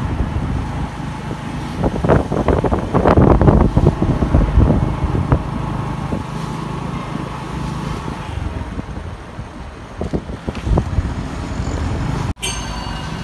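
Road traffic: car engines and tyre noise passing close by, with a steady low rumble and louder surges in the first few seconds. The sound cuts out abruptly for a moment near the end.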